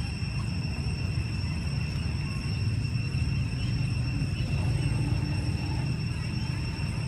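Outdoor ambient noise: a steady low rumble with a thin, steady high-pitched whine above it.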